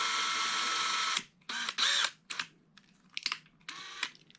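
Cordless drill with a small bit running steadily, drilling a shallow pilot hole into a die-cast toy car's rivet; it stops about a second in. Then come a few light clicks and rattles of handling.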